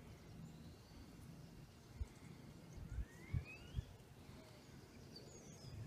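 Quiet open-field ambience with a faint bird call that rises in pitch about three seconds in and a brief high chirp near the end. A few soft low thumps come in the middle.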